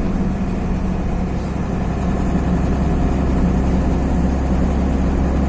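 Heavy truck's diesel engine and tyre noise heard from the moving truck, a steady low drone at cruising speed.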